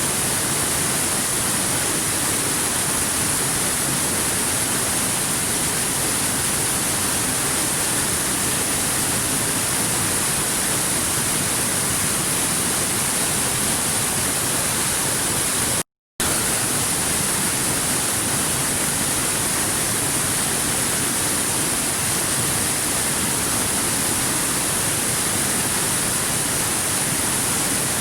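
Stream water flowing steadily over rocks, an even rushing with no separate splashes. The sound drops out to silence for a split second about halfway through.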